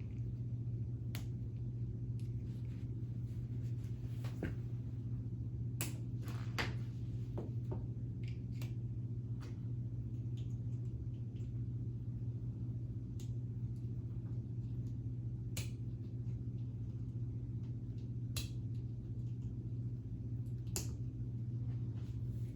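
Scattered light clicks of K'nex plastic parts being handled and snapped together as wheels are fitted back onto a model trailer, over a steady low hum.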